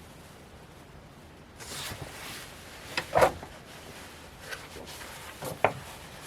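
Sheet music books being handled: a brief rustle of paper, then a few short knocks and bumps, the loudest about three seconds in.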